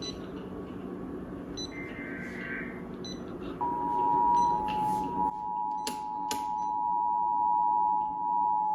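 Emergency Alert System two-tone attention signal, the 853 Hz and 960 Hz tones sounding together, relayed over cable TV. It comes in sharply about a third of the way in after a few seconds of low hiss and holds steady, with two faint clicks partway through. It marks the start of a relayed severe thunderstorm warning.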